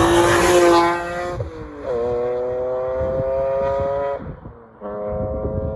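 Car engine accelerating hard, its note climbing gently in pitch, with two breaks for gear shifts, about a second and a half in and about four seconds in.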